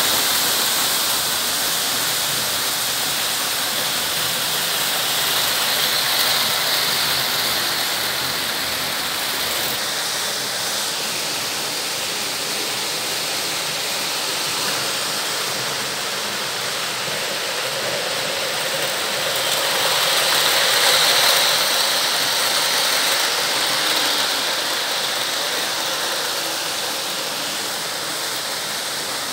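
Märklin H0 model trains running on Märklin M-track pressed-metal rails: a steady rushing rattle of wheels on the tinplate track, swelling louder twice as trains pass closer.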